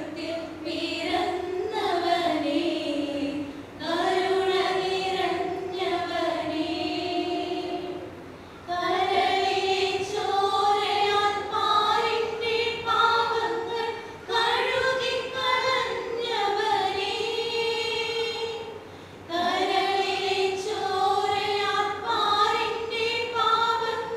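A small group of women singing together unaccompanied, in long held phrases with brief pauses between them.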